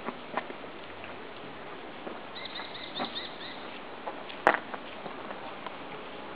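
Outdoor ambience with a steady hiss and scattered small clicks and knocks. The loudest is a sharp knock about four and a half seconds in. A small bird chirps in a short run of quick high notes about two and a half to three and a half seconds in.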